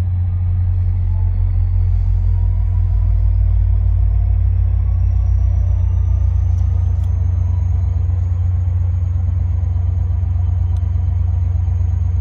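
Diesel locomotive of a standing passenger train running at the platform: a loud, steady low rumble, with a faint high whine that slowly rises in pitch over the first several seconds and then holds steady.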